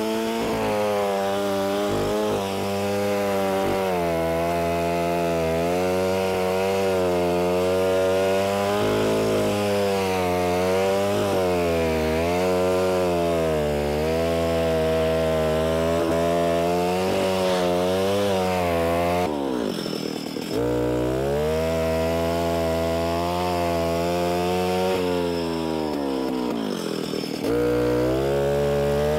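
Alpine Magnum trencher's Stihl two-stroke powerhead running hard under load as its cutter wheel digs through soil. The engine note wavers up and down continuously as the load changes. Twice, about two-thirds through and near the end, it sags in pitch and picks back up.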